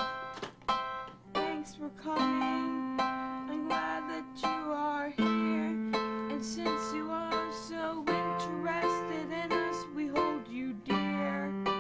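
Portable electronic keyboard being played: a quick melody of short, plucked-sounding notes over held low notes that change every few seconds.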